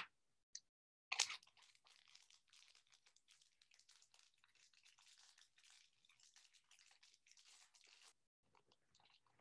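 Foil wrapper of a Topps baseball card pack torn open with a short rip about a second in, followed by faint crinkling of the foil as the pack is worked open.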